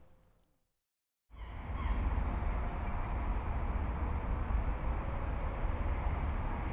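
Silence for about a second, then steady outdoor ambience comes in: a low rumble of distant city traffic.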